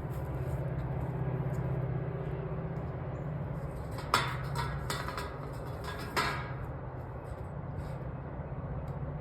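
A few sharp clicks and clanks of metal hardware being handled, a cluster about four to five seconds in and one more about six seconds in, over a steady low hum.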